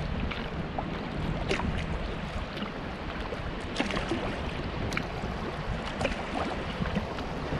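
Kayak paddling on a river: short, irregular splashes and drips of the paddle in the water over a steady low rumble of wind on the microphone.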